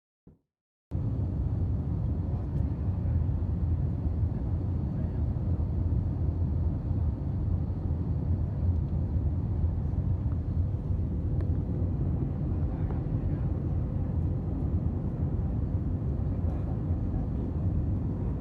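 Steady low roar of an airliner's jet engines, even in level throughout with no rise or fall, after under a second of silence at the start.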